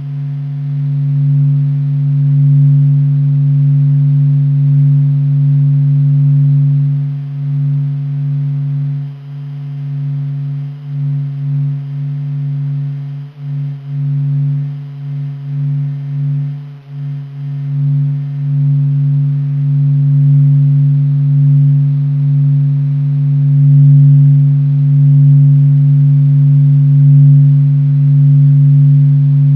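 NASA's sonification of the Sun's surface vibrations: a steady low hum with a strong overtone above it and fainter higher tones, wavering and dipping in loudness for a stretch in the middle.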